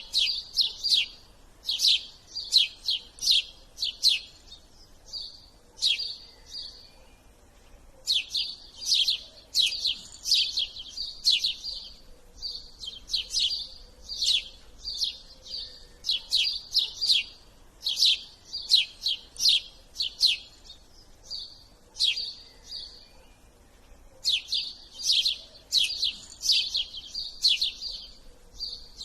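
A bird chirping over and over: runs of quick, high, downward-sweeping chirps, several a second, broken by short pauses every few seconds.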